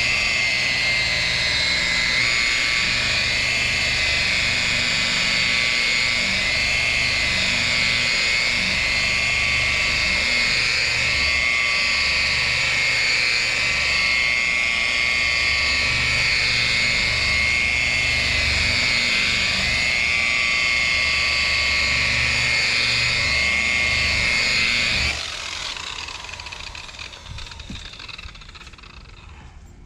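DeWalt rotary polisher spinning a wool pad against car paint, compounding out wet-sanding marks. It gives a loud, steady motor whine whose pitch wavers slightly, then winds down and stops about 25 seconds in.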